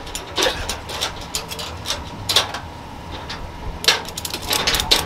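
Ratchet tie-down strap being worked to hold a pickup truck down on a chassis dyno: sharp, irregular metal clicks and clacks, with quick runs of ratchet clicks near the end.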